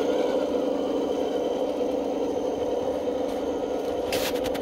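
A CROSS RC KrAZ-260 6x6 scale truck driving, with a steady mechanical hum from its drive. A short burst of crackling noise comes near the end.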